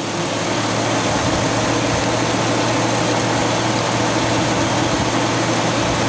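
Chevrolet Silverado Classic pickup engine idling with the air conditioning running, heard close at the serpentine belt drive and A/C compressor: a steady rushing noise with a low hum that comes in at the start and holds.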